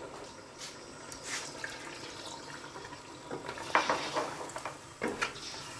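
Wooden spatula stirring chunks of beef, tomato and freshly added water in a steel cooking pot, with faint sizzling of the hot liquid underneath. A few scrapes and knocks against the pot come about halfway through and again near the end.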